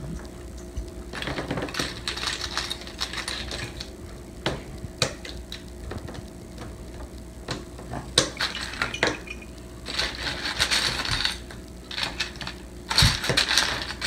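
Best-Lock plastic construction bricks clicking and clattering as small pieces are pressed together and picked from a pile on a tabletop, in scattered sharp clicks and short patches of rattling. A louder clatter with a knock on the table comes near the end.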